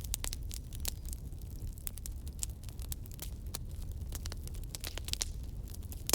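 Campfire burning: wood crackling and popping in quick irregular snaps over a steady low rumble of the flames, with one louder pop near the end.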